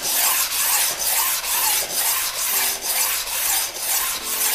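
Wet coarse (blue) diamond sharpening stone pushed forward and back along ice-skate blades clamped in a sharpening jig: a steady rasping scrape, about two strokes a second with a brief dip at each turn of the stroke. This is the first, coarse-grit stage of hand-sharpening the blades.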